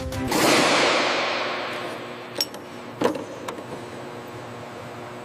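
A loud rush of hissing air that fades away over about two seconds, then a few sharp, separate metallic clinks and knocks, like tools striking metal parts.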